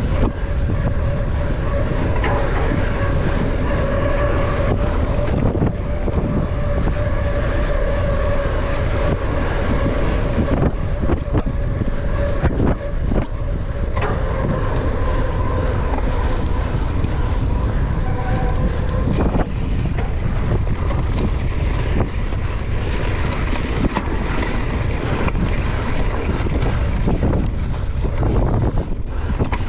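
Wind rushing over the microphone of a mountain bike ridden fast, with a steady hum through roughly the first half and scattered sharp knocks and rattles.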